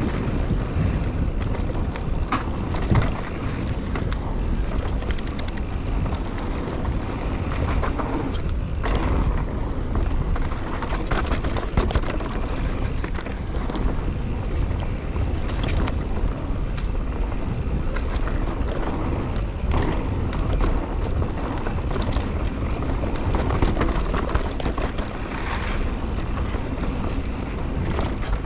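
Wind buffeting the action camera's microphone while a mountain bike is ridden along a trail, with steady tyre noise and scattered knocks and rattles from the bike over the ground.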